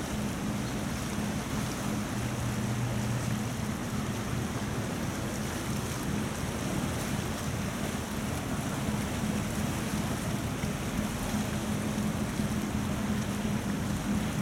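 Fast tidal current rushing through a narrow sea strait, a steady watery wash, under a steady low drone from the engines of passing cargo ships.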